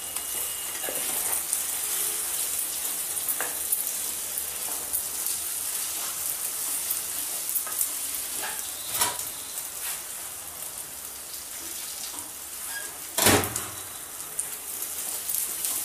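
Sabudana, potatoes and peanuts sizzling in ghee in a kadai as a wooden spatula stirs and scrapes them through, with scattered light taps. One louder knock near the end, as the spatula is set down against the pan.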